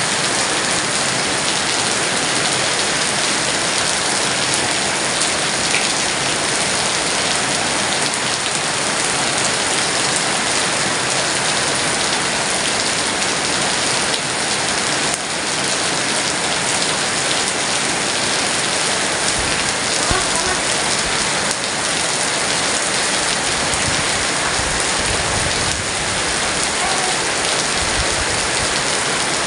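Heavy rain pouring steadily, a dense, even hiss of drops falling on surfaces.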